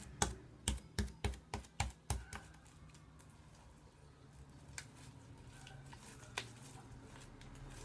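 Homemade glue slime being kneaded and pressed by hand on a table: a quick run of sticky clicks and pops in the first two seconds or so, then only a couple of single clicks. The slime is starting to come away from the table and hand as the activator takes hold.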